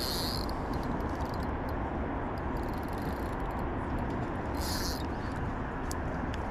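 Wind buffeting the microphone outdoors, a steady low rumble and hiss, with two short high-pitched chirps, one at the start and one about five seconds in.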